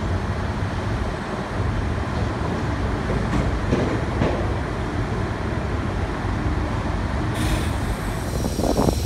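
New York City subway train of older stainless-steel cars on elevated track, a steady noise of wheels and motors on the rails. Sharper crackling rail clatter comes in near the end.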